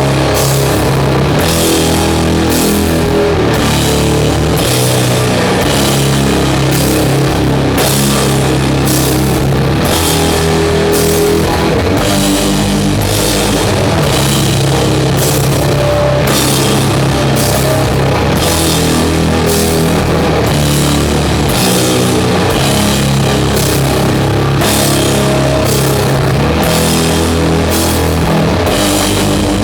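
Doom metal band playing live and loud: distorted guitars and bass hold low, sustained notes over a drum kit whose cymbal crashes fall on a slow, steady beat of about one a second.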